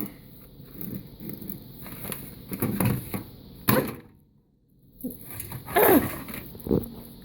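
Handling clatter of light knocks and clicks as a lid is set over a plate inside a microwave, with one sharper click partway through and a short falling squeak near the end.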